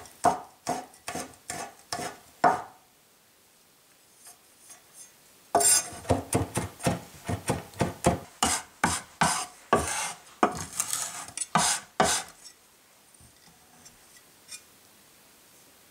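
Chinese cleaver chopping garlic on a wooden cutting board: a short run of sharp knocks about three a second, a pause of about three seconds, then a longer run of chopping lasting about seven seconds before it stops.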